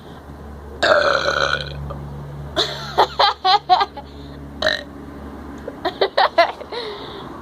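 A person burping after gulping fizzy Pepsi, bringing up swallowed carbonation gas: one long, loud burp about a second in, then several runs of short, quick bursts.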